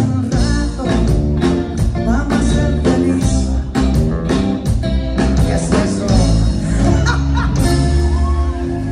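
Live band music through a PA system: electric guitar and bass over a steady drum beat.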